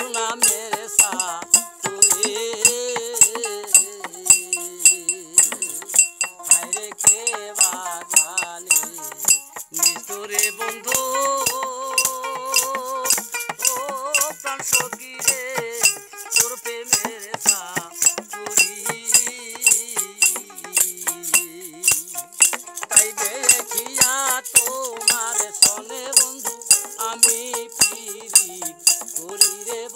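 Live Bengali folk music: a wavering melody of long held notes over a fast, steady beat of clinking metal percussion, with a bright cymbal-like ring above it.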